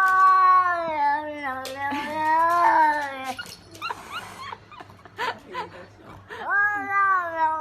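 A dog howling: one long drawn-out howl with a slowly falling pitch, then a second howl starting near the end.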